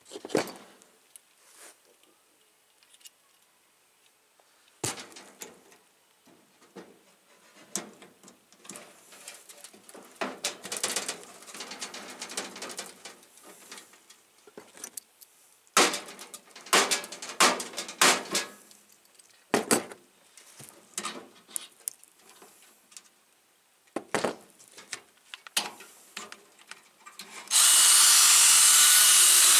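Scattered knocks and rattles of tools handled against the sheet metal, then near the end a power drill starts and runs steadily, boring a rivet hole through the metal patch on the dog feeder's rusted bottom.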